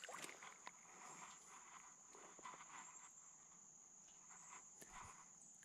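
Near silence outdoors: a faint, steady, high-pitched drone of insects, with a few faint clicks.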